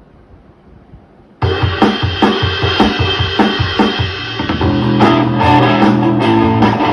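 A rock backing track with drum kit, bass and guitar starts playing suddenly about a second and a half in, the drums hitting in a steady beat.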